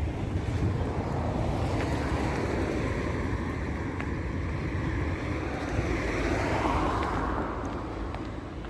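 Wind buffeting the microphone over steady outdoor traffic noise, with a broad swell about six seconds in that then fades away.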